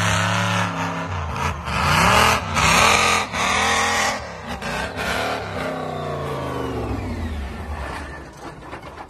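Monster truck engine revving up and down several times as the truck drives, loudest about two to four seconds in, then easing off and fading near the end.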